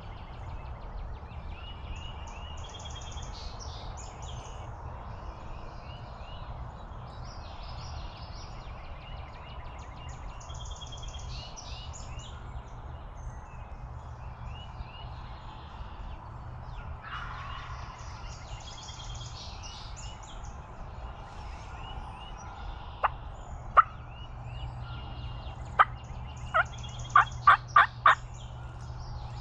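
Songbirds singing in a dawn chorus, then in the last few seconds a series of short, sharp turkey calls. They come singly at first, then four in a row at about three a second, typical of clucks and yelps.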